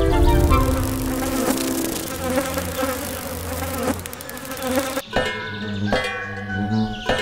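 Buzzing of a swarm of bees and other insects flying past. About five seconds in, a metal cowbell on a cow's neck clanks three times.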